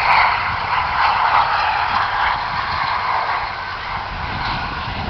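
Jet engine noise from the Red Arrows' BAE Hawk jets: a steady, loud rushing sound that eases slightly a few seconds in.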